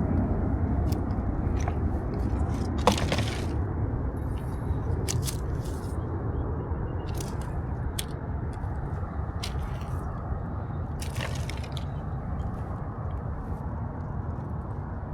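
Scattered crunches, crinkles and scrapes of litter being picked up and handled, over a steady low rumble.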